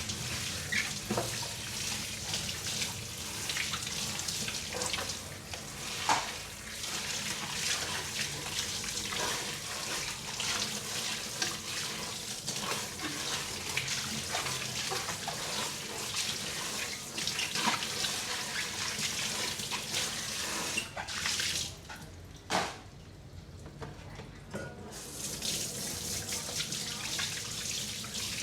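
Tap water running into a kitchen sink while dishes are washed by hand, with scattered light clinks and knocks of dishes. About three-quarters of the way through, the running water stops for a few seconds, with one sharper knock, then runs again.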